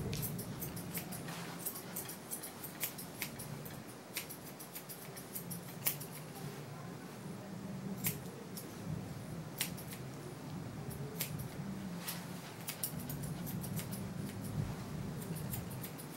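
Grooming shears snipping a dog's coat: crisp, irregular snips about once a second, over a low steady hum.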